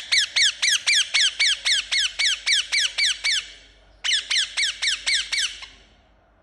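Indian ringneck parakeet calling: a fast run of high-pitched chirps about four a second, each falling in pitch, then a short pause and a second, shorter run.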